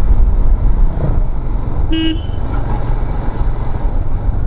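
Motorcycle running on the road, a steady low engine and wind rumble on the microphone. A single short vehicle horn toot sounds about two seconds in.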